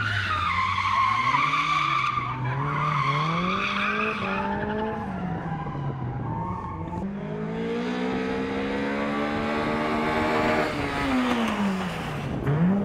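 Car engine revving hard up and down through a gymkhana run, with tyres squealing in a slide over the first four seconds or so. Later, a long rev climbs and then falls away.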